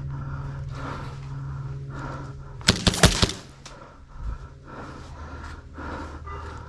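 An airsoft gun firing a quick burst of about five sharp shots in half a second, a little under halfway in, over a steady low hum.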